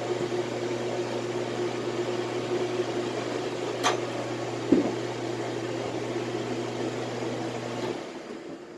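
A small electric fan motor blowing steadily with a low hum, switched off near the end. There is a sharp click about four seconds in and a short knock just after it.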